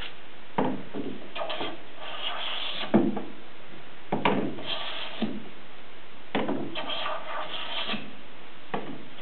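Hand plane cutting an alder board in repeated strokes: each begins with a knock as the plane lands on the wood, followed by the hiss of the iron taking a shaving. The shavings now run nearly the full length of the board, a sign that it is close to flat.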